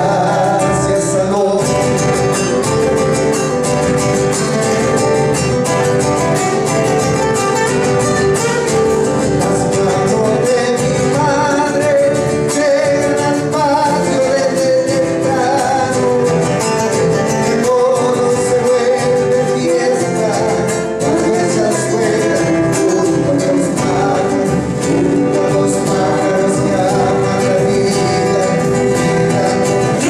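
Live Argentine folk song: acoustic guitars played with singing, continuing without a break.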